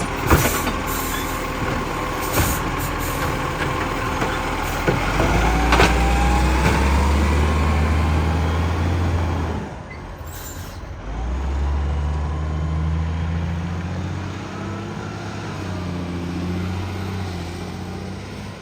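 Garbage truck engine with a bad exhaust leak, running and pulling hard from about six seconds in, easing off briefly near ten seconds and picking up again. Sharp knocks and clatter in the first few seconds.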